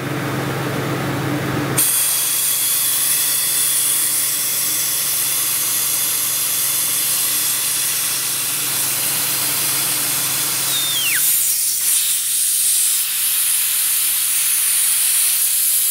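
Compressed air hissing steadily from an air-line nozzle fed into the inlet of a small brass twin-cylinder model steam engine, running it on air. The hiss starts about two seconds in, with a short falling whistle about eleven seconds in.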